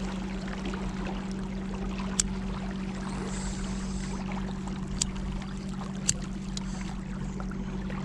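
A boat motor running steadily under way, a constant low hum over rushing water, with a few short sharp clicks about 2, 5 and 6 seconds in.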